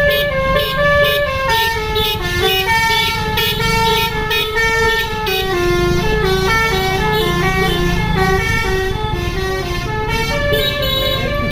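Indonesian bus 'telolet' horn: a set of multi-tone air horns playing a melody of short held notes that step up and down in pitch, over the rumble of the bus's engine.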